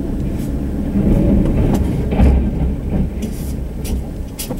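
Low, steady rumble of a Chevy Colorado pickup creeping forward in four-low, heard from inside the cab while it pushes its front snow plow, with a few brief sharp clicks along the way.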